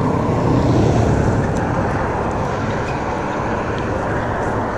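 Steady rushing noise of road traffic going by on the highway bridge.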